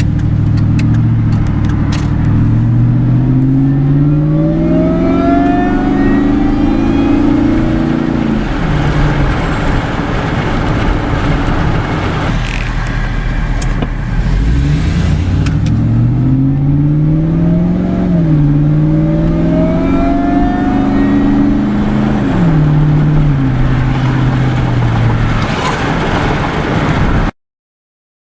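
2002 SVT Lightning's supercharged 5.4-litre V8 accelerating hard, twice: the engine note climbs and drops back at each automatic upshift, with the supercharger's whine rising along with it. The sound cuts off abruptly near the end.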